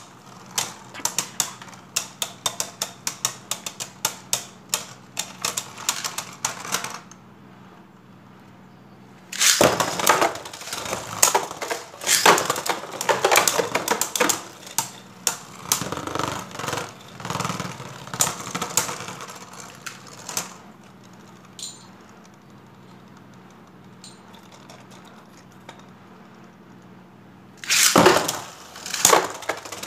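Beyblade Burst spinning tops (Spriggan Requiem, Nightmare Longinus and Xcalibur) clashing in a plastic stadium: rapid clacking collisions and rattling against the walls, in two busy stretches separated by quieter spinning. A loud clatter near the end as a hand reaches into the stadium.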